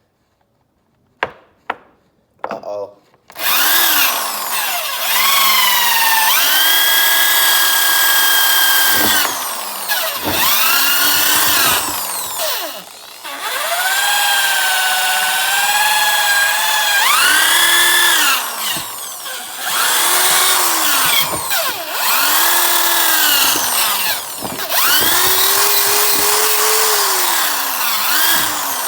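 Drill-like handheld power-tool motor, used as a makeshift polisher, run hard in repeated bursts. Its whine rises and falls in pitch as the speed changes, and it stops briefly several times. A few sharp clicks come just before it starts.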